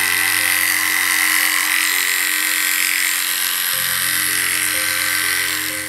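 Cordless electric dog clipper running steadily as it shaves through the matted, corded coat of a puli's tail, a loud buzzing hiss that cuts off near the end.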